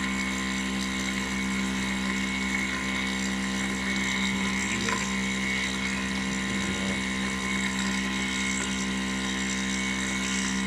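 CNC metal milling machine running: a steady mechanical hum with a constant high whine.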